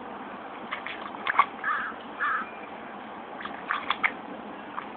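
Water splashing and sloshing in a shallow inflatable kiddie pool as a dog dunks its head and paws at the bottom. There are two clusters of sharp splashy knocks, about a second in and again near four seconds. Between them come two short harsh rasps.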